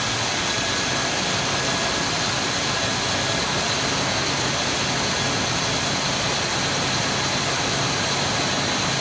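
5.7 L Vortec V8 of a 2000 Chevy K2500 idling steadily with a new distributor fitted, while its ignition timing (cam/crank correlation) is being adjusted.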